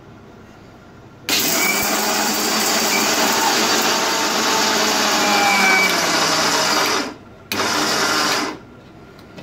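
Electric mixer grinder dry-grinding coconut, peanuts and garlic to a powder. It starts about a second in and runs for nearly six seconds, stops for a moment, then runs again for about a second.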